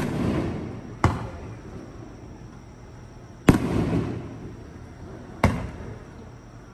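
Aerial fireworks shells bursting: four sharp bangs, the first right at the start and the others about a second, three and a half seconds and five and a half seconds in, each trailing off in a fading rumble.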